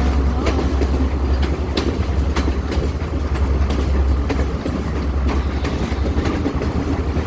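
Passenger train running on the rails: a steady low rumble with sharp clicks of the wheels over the track, about two a second.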